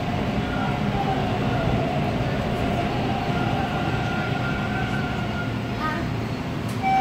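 Toronto subway train running into a station, heard from inside the car: steady wheel and rail rumble with a faint whine that drifts slightly lower as the train slows.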